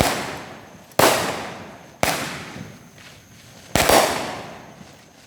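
Consumer fireworks going off: four loud bangs about a second apart, the last after a slightly longer gap, each trailing off in a long echo.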